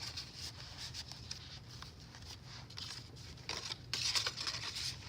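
Paper pages of a handmade junk journal rustling and crinkling as they are handled and turned, louder for a moment near the end.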